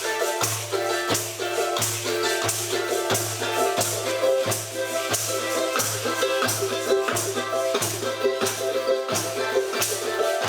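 Instrumental music with a steady beat: a low bass note repeating about one and a half times a second under shaker percussion and held higher notes.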